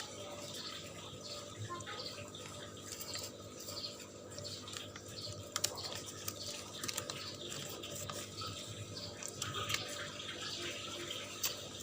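Packaging being handled: small irregular clicks and crinkles, with a few sharper ticks, over a steady electrical hum.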